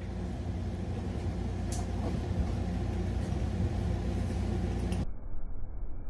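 A steady low hum with rumble, with a faint click or two about two seconds in. It turns suddenly muffled about five seconds in.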